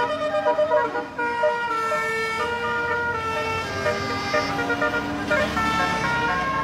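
Telolet multi-tone musical air horn on a Tunggal Jaya bus playing a tune of held notes that keep changing pitch, over the low running of the bus's engine.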